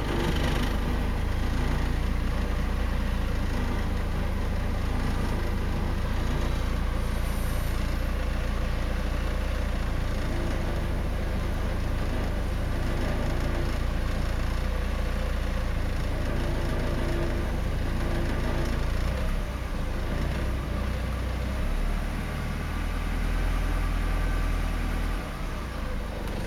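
Porsche 944's inline four-cylinder engine running steadily, heard from inside the cabin, with its defective hydraulic lifters replaced by good used ones. The low engine note shifts a little in the last several seconds.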